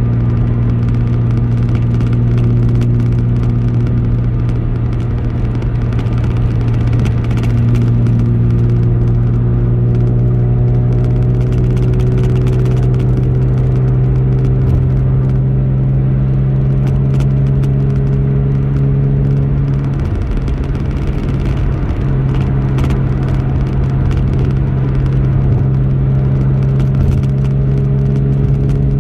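Car driving at highway speed: a steady, loud low drone of engine and road noise, with slowly drifting engine tones and a few light clicks.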